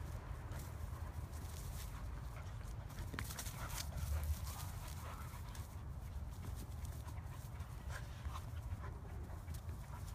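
Two dogs, a young husky and a tan-and-white dog, play-fighting in dry grass: scuffling with many quick clicks and rustles, over a steady low rumble.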